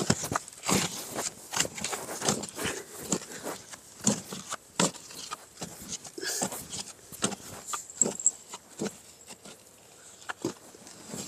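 Irregular knocks and scrapes of a wooden digging stick jabbed into dry sandy soil, breaking open a snake burrow, about one or two strikes a second.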